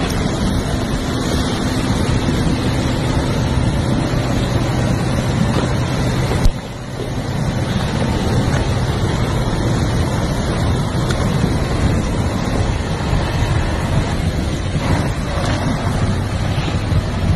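KAMAZ truck's diesel engine running under load as the truck ploughs through slush and water over ice, its wheels churning and splashing, with wind on the microphone. A sharp click and a brief drop in level about six and a half seconds in.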